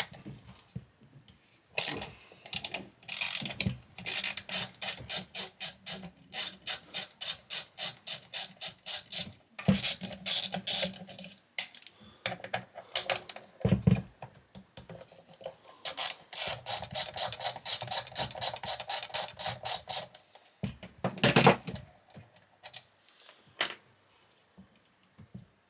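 Ratchet wrench clicking in quick runs of about five or six clicks a second as bolts are undone, several runs with short pauses between them. A few single knocks come in between, near the middle and about three-quarters of the way in.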